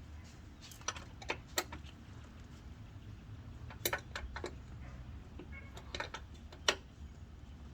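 Scattered light metallic clicks and clinks, about eight in all, from tools and small metal parts being handled during hands-on repair work, over a low steady hum.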